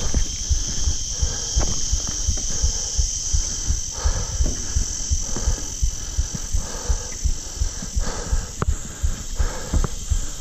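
A hiker's footsteps crunching on a rocky path and thudding up steps onto a timber deck, under a steady high buzz of insects.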